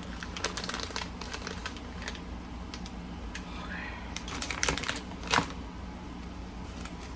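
Small package being handled and opened by hand: a run of light irregular clicks and rustles, with one sharper click about five seconds in, over a steady low hum.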